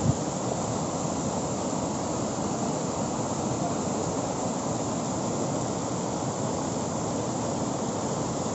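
Steady rushing noise of water, as from heavy rain and floodwater pouring over rocks, with one short knock just after the start.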